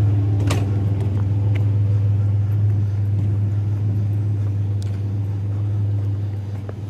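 Steady low hum of an idling vehicle engine, with a sharp click about half a second in.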